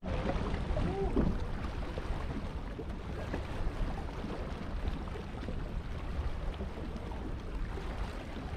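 Steady wind rumbling on the microphone over harbour water washing around a rock shelf. A short wavering tone sounds about a second in.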